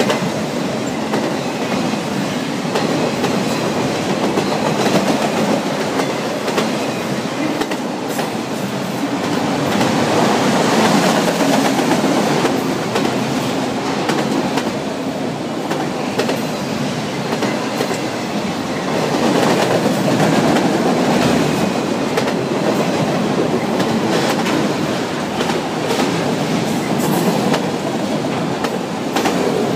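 Freight train of autorack cars rolling past close by: a steady rumble of steel wheels on rail with repeated clicking. It swells louder about a third of the way in and again just past the middle.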